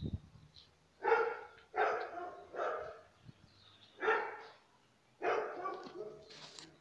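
A dog barking, about five barks spread over several seconds.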